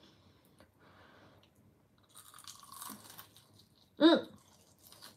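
Crunching and chewing as a piece of Japanese fried chicken (karaage) is bitten and eaten, with a short voiced sound from the eater about four seconds in.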